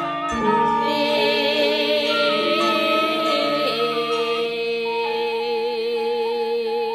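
Music with singing: long held notes that waver in pitch, over sustained instrumental tones.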